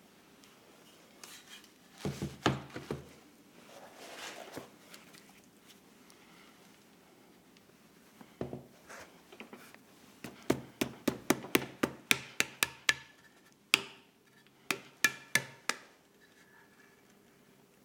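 Plaster mould pieces being handled on a work table: a few knocks about two seconds in, then a quick run of sharp taps, about four a second, from about ten to sixteen seconds in.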